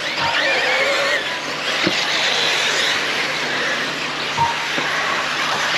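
Several brushless electric RC race cars running around a track, making a dense, steady high whine. The whine's pitch wavers up and down in the first second or so as the motors are throttled.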